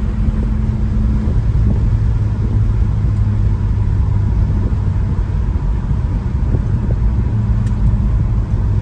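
1964 Pontiac GTO's 389 V8 running at a steady highway cruise, a constant low drone mixed with tyre and road noise, heard from inside the cabin.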